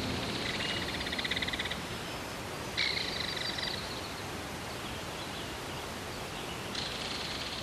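Outdoor nature ambience: rapid, buzzing animal trills over a steady hiss. One trill fades out about two seconds in, another starts sharply about three seconds in, and a fainter one comes in near the end.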